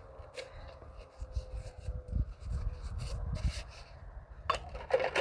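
Rubbing and scraping on a surface with scattered light knocks, with a louder clatter of knocks just before the end.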